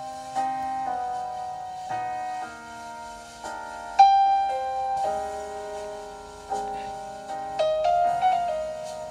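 Background piano music: single notes and chords struck every second or so and left to ring, with a louder chord about four seconds in.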